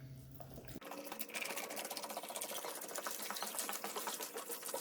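Rust dissolver liquid being poured from a jug into a tub, a steady splashing stream that starts about a second in.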